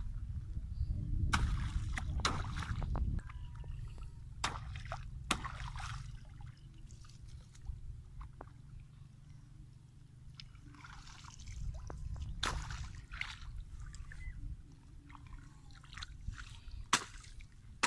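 Sloshing and splashing in shallow pond water as weeds and brush are chopped loose and pulled out, with scattered sharp knocks and a steady low rumble.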